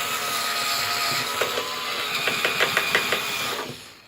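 Small power drill running steadily as it bores a tail-lamp hole through a plastic RC car body, with a run of light clicks in the second half; the motor stops near the end.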